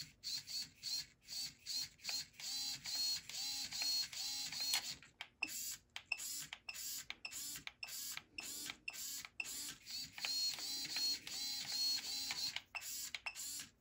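Small RC hobby servos whirring in quick back-and-forth bursts, a few a second, each a short gear whine that rises and falls in pitch. They are driven by a conformal-coated receiver sitting in salty water, so the receiver is still working.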